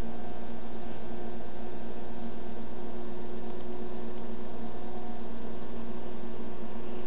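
Steady electrical hum and hiss with several faint constant tones, with a few faint ticks as sticker sheets are handled.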